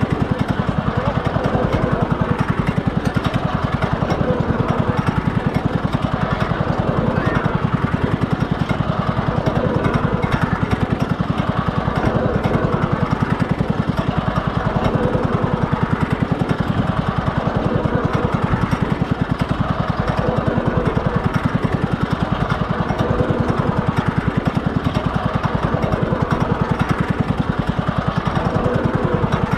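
Small engine running steadily at one speed close to the microphone, a fast, even putter with no revving.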